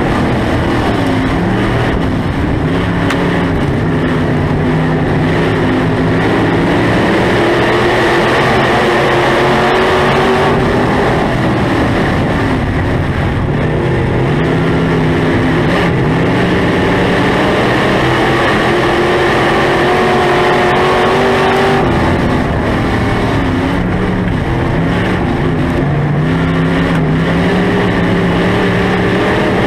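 Dirt-track SportMod race car's V8 engine, heard from inside the cockpit, pulling hard on the throttle. Its pitch climbs for several seconds and then drops as the driver lifts for the turns, about four times.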